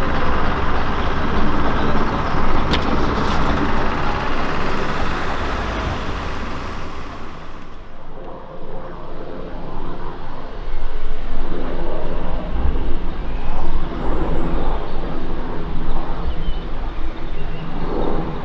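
Class 121 'Bubble Car' first-generation diesel railcar running close by, its engine and the rail noise loud and hissy, cut off abruptly about seven seconds in. Then a modern Chiltern Turbo diesel multiple unit is heard approaching, its engine growing louder from about ten seconds in.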